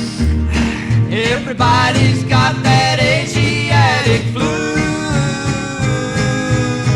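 1950s rockabilly band music with guitar, settling into a long held chord about four and a half seconds in.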